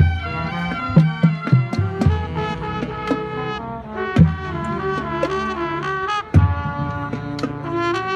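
High school marching band playing: a brass melody of held notes over low brass, punctuated by drum hits.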